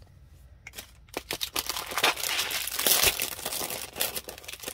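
Clear plastic wrapping crinkling as a wrapped plastic case of wax seal beads is lifted and handled, starting about a second in and busiest around the middle.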